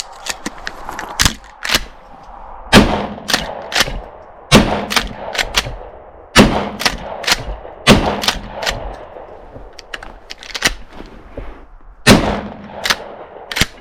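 Winchester 1897 pump-action shotgun firing Aguila 1¾-inch mini shells in rapid succession, four shots about two seconds apart and one more near the end, with the pump action clacking between shots as it is worked to slam fire.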